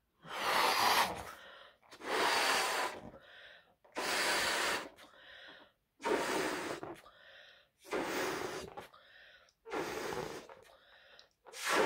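A person blowing up a latex balloon by mouth: a strong puff of breath into the balloon about every two seconds, with softer breathing between the puffs.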